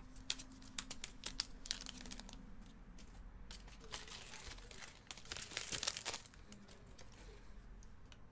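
Foil trading-card pack wrappers crinkling and rustling as they are handled, with scattered light clicks. The crinkling comes louder twice, briefly about two seconds in and again for a couple of seconds around the middle.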